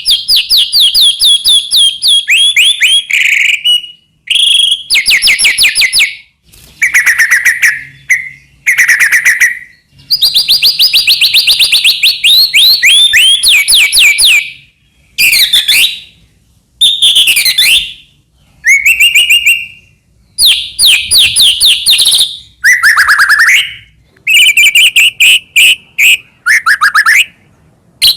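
White-rumped shama singing loudly in a long run of separate phrases: fast repeated notes, trills and sweeping whistles, each phrase a second or a few seconds long, with short pauses between them.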